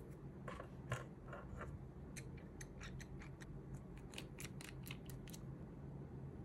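A few light clicks of plastic press-on nail tips handled in the palm. Then a quick run of small crisp clicks as the ribbed plastic dropper cap of a peel-off gel remover bottle is twisted open.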